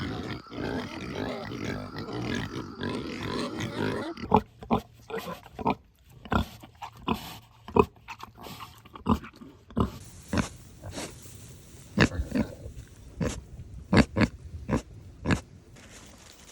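Pigs grunting: a dense stretch of overlapping grunting for the first four seconds, then single short grunts about one a second.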